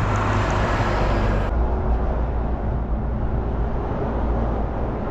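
Strong wind rushing and buffeting over the microphone in a force-8 gale; the sound changes abruptly about a second and a half in.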